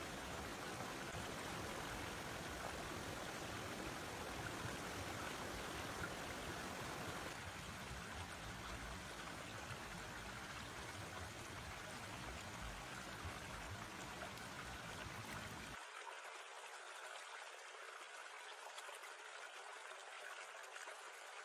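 Forest stream flowing, a steady rushing and trickling of water. About sixteen seconds in, the deep rumble drops away suddenly, leaving a thinner water hiss.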